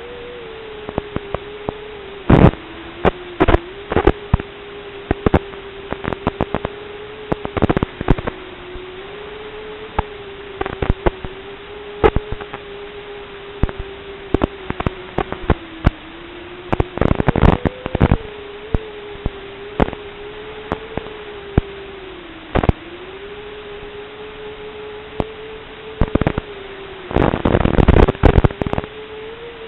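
Analog FPV video receiver audio recorded by the goggles' DVR: a steady electronic tone that wavers and dips slightly in pitch, with irregular crackles and clicks of static as the video signal breaks up. The crackling is densest near the end.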